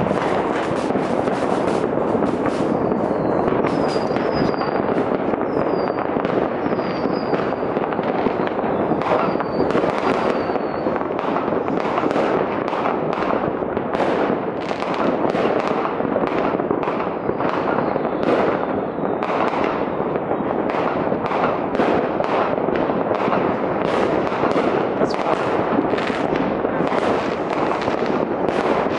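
Citywide New Year's Eve fireworks: a continuous din of firecrackers and rocket bursts going off in all directions. Several short, high, slightly falling whistles sound in the first half.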